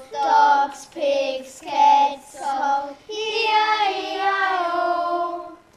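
A child singing without words: four short sung notes, then one long held note that fades out near the end.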